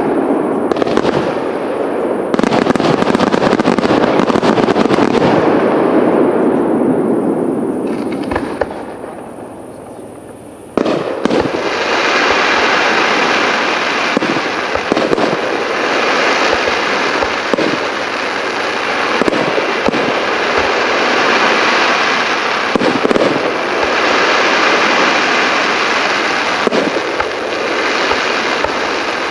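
Aerial firework shells bursting in a continuous barrage of bangs and crackling. The barrage dies down from about eight seconds in, then resumes suddenly at about eleven seconds, brighter and more crackly, and keeps going.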